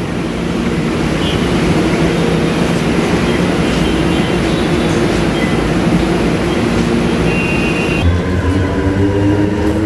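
A heavy vehicle runs close by in a crowded transit station, a loud steady rumble. About eight seconds in, its engine or motor note starts rising as it speeds up, and a couple of brief high squeals cut in over it.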